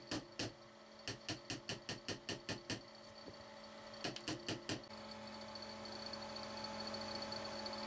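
Steel chisel struck in quick taps, about four a second, cutting into the end grain of a wooden handle, in three short runs that stop about five seconds in. A steady hum remains afterwards.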